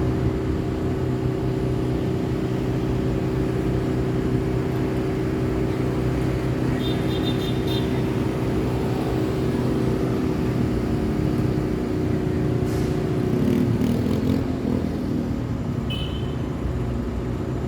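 City road traffic: a vehicle engine running steadily close by with a low hum, its pitch shifting and breaking up about thirteen seconds in as it moves off. Two short high-pitched chirps sound, one about seven seconds in and one near the end.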